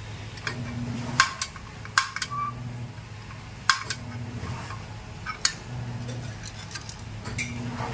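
Portable butane card-type stove's piezo igniter snapping as the knob is turned, about four sharp clicks a second or two apart, over a low hum that swells and fades.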